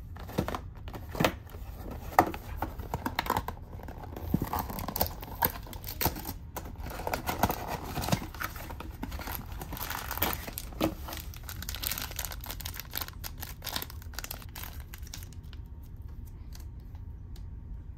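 A small paperboard box handled and opened, with sharp taps and card scraping, then a plastic snack wrapper torn open and crinkled. The sounds thin out over the last few seconds.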